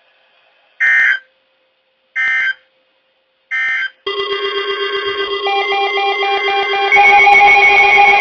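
Three short bursts of NOAA Weather Radio SAME end-of-message data tones, a buzzy electronic warble about a second and a half apart, marking the end of the warning broadcast. Music starts about four seconds in and gets louder near seven seconds.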